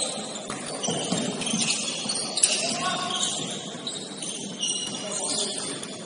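Basketball shoes squeaking on a hardwood court in short, high-pitched chirps. A single sharp knock, like the ball hitting the floor, comes about two and a half seconds in.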